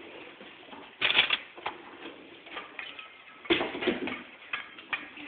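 Irregular clicking and clatter as a hand mixer and a metal mixing bowl are handled, with two louder bursts of knocks, about a second in and just past the middle.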